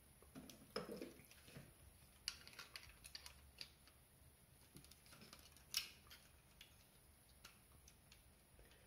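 Faint clicks and rustling of plastic toy parts being handled and pressed together as a hand attachment is pegged onto a Transformers figure. The clicks come scattered, with the sharpest about six seconds in.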